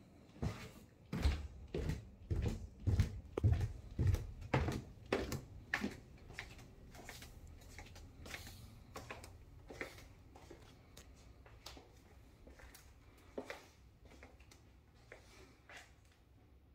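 Footsteps going down a staircase: about ten heavy, evenly paced steps a little under two a second, followed by fainter steps and light knocks across the floor below.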